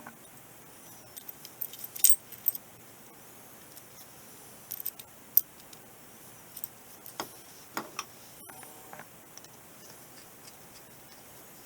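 Small metal parts clinking and tapping, scattered light sharp clicks, while a U-joint is being fitted into a driveshaft clamp yoke. The loudest clicks come about two seconds in and a little past the middle.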